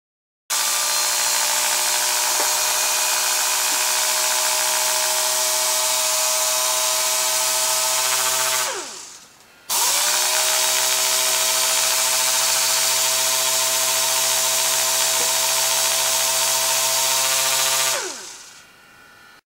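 DR-914L pneumatic dual-action (random orbital) air sander with a 6-inch pad running at full speed: a steady whine over hissing exhaust air. It runs twice for about eight seconds each time, starting abruptly and winding down with a falling pitch as it spins to a stop.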